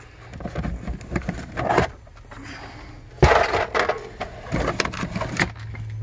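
Items being lifted out of a plastic storage cubby in a car's rear side panel: rustling and a series of knocks and clunks as a plastic tool case and loose gear are handled. The loudest knock comes about three seconds in.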